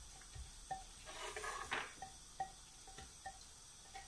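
Spatula scraping and tapping against the sides of a food-processor bowl as ground chilli paste is worked loose: faint, soft taps with a short scrape about a second in.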